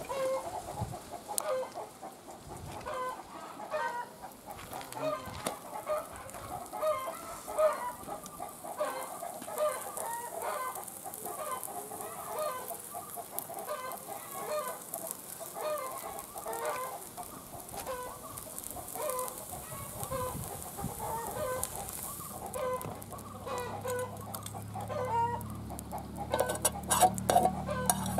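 Hens clucking, short calls one after another throughout. Near the end a low steady hum comes in, with a few sharp clicks.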